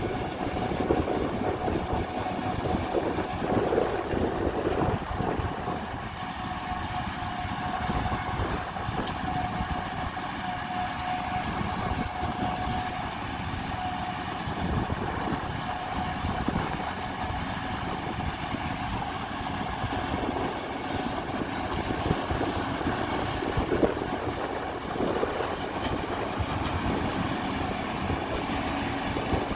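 Large harvesting machinery running steadily, a dense mechanical rumble and rattle with a thin steady whine over it for much of the time.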